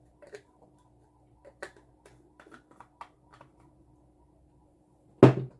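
Light clicks and taps of a spoon against containers while seasoning is spooned out, then one loud knock about five seconds in.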